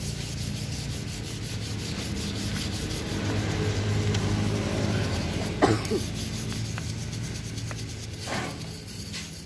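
Fine wire brush scrubbing the metal of a motorcycle engine crankcase in quick back-and-forth strokes, rasping off crusted grime softened by a detergent-and-petrol cleaner. One sharper knock sounds a little past halfway.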